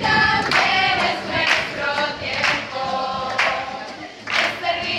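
A mixed group of young people and nuns singing together in chorus, clapping along about once a second.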